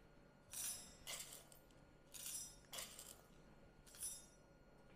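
Whole coffee beans tipped from a spoon into a small stainless steel cup, rattling against the metal in about five short bursts.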